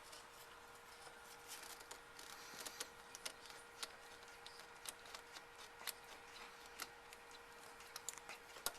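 Faint, irregular small clicks and light scraping of needle-nose pliers twisting and working a spark plug cap loose, over a faint steady hum. The clicks come thicker and louder near the end.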